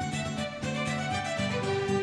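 Background instrumental music with a regular pulse.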